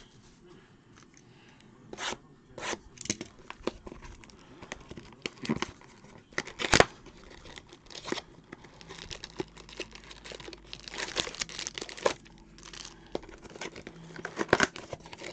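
Cardboard trading-card hobby box (Topps Finest) being torn open and handled, with its plastic wrapper crinkling. There are scattered rustles and taps, a sharp crack about seven seconds in, and busier rustling later on.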